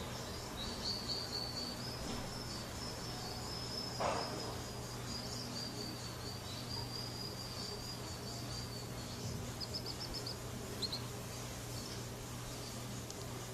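F1 canary singing a long, steady, high rolling trill lasting about eight seconds, followed by a few quick chirps. A brief knock about four seconds in, over a steady low hum.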